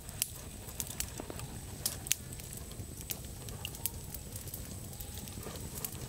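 Open wood fire crackling, with irregular sharp pops and snaps, over a steady low rumble.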